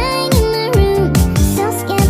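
Upbeat electronic music with a steady beat about twice a second and a melody whose notes slide in pitch.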